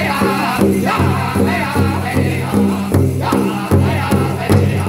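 A powwow drum group sings an intertribal song, men's voices together over a steady, even beat of several drumsticks striking one large hide drum. The voices drop out briefly about three seconds in while the drumbeat carries on.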